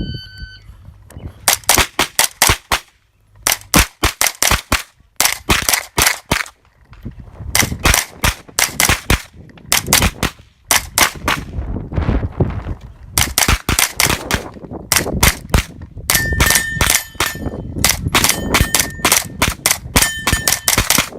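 A shot timer's start beep, then a JP Rifles GMR-15 9mm pistol-caliber carbine firing rapid strings of shots, in quick bursts of several shots with brief pauses between them. Near the end the hits ring steel plates, leaving a ringing tone after the shots.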